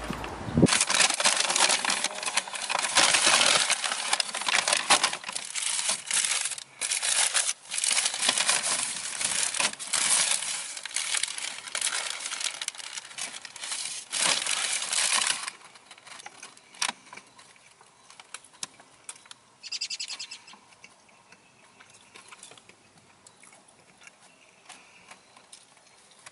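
Paper fast-food bag and burger wrapper rustling and crinkling close up, loud and nearly continuous for about the first fifteen seconds, then only occasional quieter rustles.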